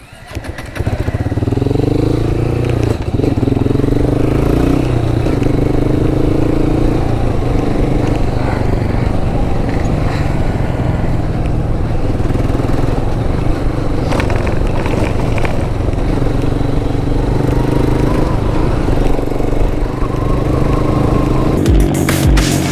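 Honda motorcycle's engine running as the bike rides along, its pitch stepping up and down every few seconds, with a steady rush of road and wind noise.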